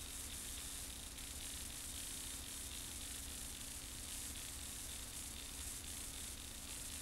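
Steady hiss with a low hum from an old videotape soundtrack, unchanging throughout.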